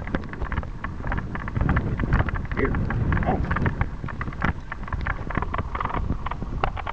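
Wind buffeting the microphone on a horse moving at a fast gait, over many irregular sharp knocks and clicks from its hoofbeats and tack.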